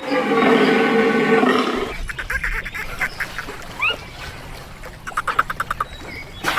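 Animal calls: a long pitched call that ends about two seconds in, then rapid trains of short, clipped calls repeating about ten times a second.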